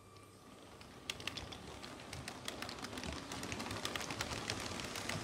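LEGO model train running past close by, its wheels clicking and rattling over the plastic track joints, getting louder and denser as it approaches.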